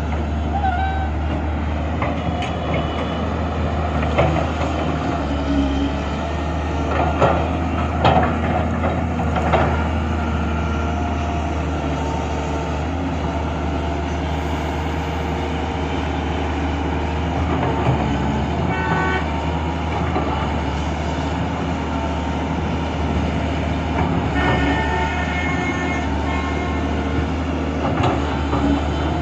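Heavy diesel engine running steadily with a deep drone and some steady whining tones above it, with scattered metal clanks and knocks, most of them between about four and ten seconds in.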